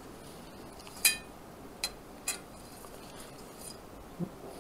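Brass trombone slide tubes clinking against each other as the inner and outer slides are fitted back together: one sharp metal clink with a brief ring about a second in, two lighter clicks soon after, and a soft knock near the end.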